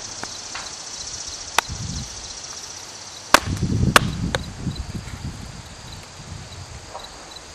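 A knife being batoned into a rotten tree stump: four sharp knocks of a wooden baton on the blade, the two loudest about half a second apart near the middle, with rotten wood crunching and breaking away after them.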